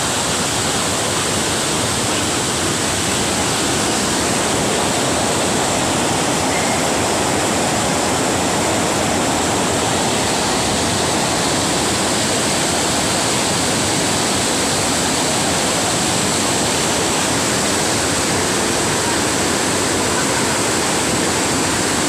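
Spring water pouring steadily into a pool: a loud, even, unbroken rush of falling and splashing water.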